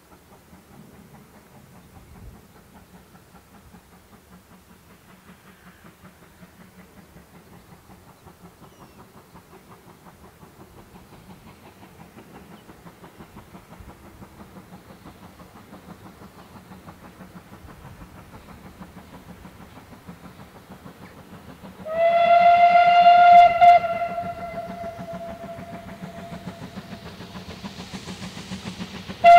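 GWR Large Prairie 2-6-2 tank locomotive No. 4144 approaching at the head of a passenger train, its rapid exhaust beats growing steadily louder. About three-quarters of the way through, a steam whistle gives a loud blast of about two seconds that trails off into a quieter note, and a short toot sounds at the very end.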